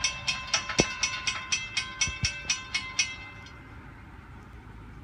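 Railroad grade-crossing warning bell ringing rapidly, about four strikes a second, while the crossing gates lower to warn of an approaching train. It stops about three seconds in, once the gates are down.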